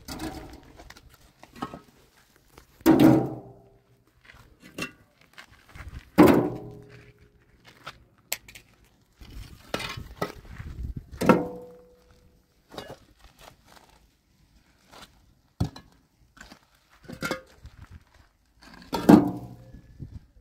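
Irregular knocks and clatter, with four heavier thumps spread through, each ringing briefly after the hit.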